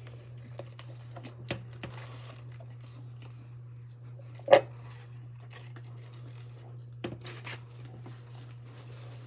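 Light clicks, taps and rustles of food and takeout packaging being handled while eating, with one louder knock about four and a half seconds in, over a steady low hum.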